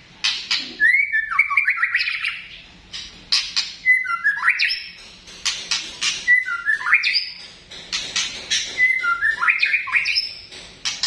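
White-rumped shama (murai batu) repeating a short call about four times: sharp clicks, then a whistled note that drops in steps to a lower pitch. It is the call described as batuk ('coughing').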